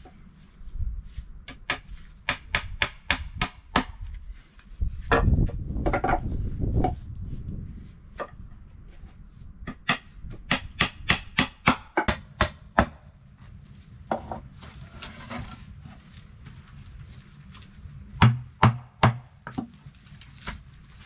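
A hammer nailing split wooden slats to a batten. It comes in three runs of quick blows, about three a second, with a scraping shuffle of boards between the first two runs.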